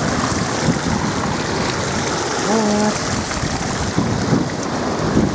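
Water rushing through the open gates of a hydroelectric dam, a steady rushing noise, with wind buffeting the microphone. About halfway through, a brief pitched sound lasting under half a second.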